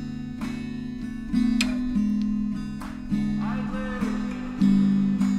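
Background music: mellow acoustic guitar chords strummed in a relaxed, repeating pattern.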